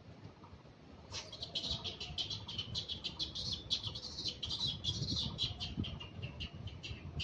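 Rapid high-pitched squeaking chatter from an animal, several short squeaks a second, starting about a second in and going on without a break.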